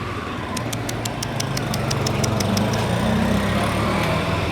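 A motor vehicle's engine running steadily, with a quick run of about ten sharp clicks, about five a second, in the first half.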